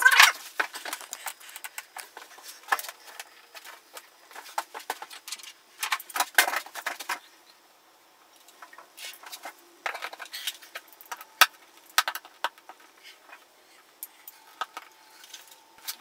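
Bursts of light metallic clinking and rattling from small hand tools and hardware being handled while electrical wire is run along a ceiling, with short quiet gaps between the bursts.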